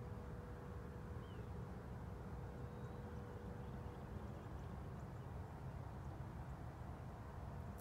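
Open-air ambience: a steady low rumble with a faint steady hum through it, and a few faint, brief bird chirps.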